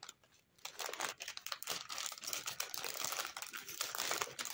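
Clear plastic cellophane bag crinkling as it is handled, a dense crackle that starts about half a second in and carries on.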